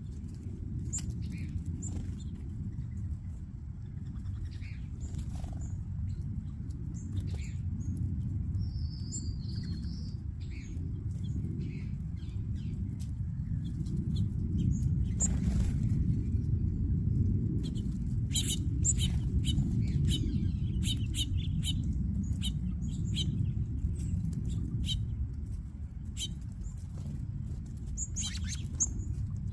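A mixed flock of backyard birds feeding and chirping in many short, scattered calls and clicks, busier in the second half, over a steady low rumble.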